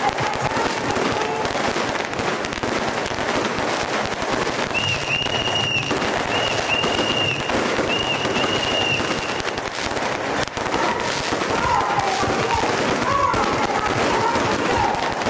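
Strings of firecrackers crackling in a dense, unbroken stream, with voices in the crowd. About five seconds in, a high whistle-like tone sounds three times over the crackle.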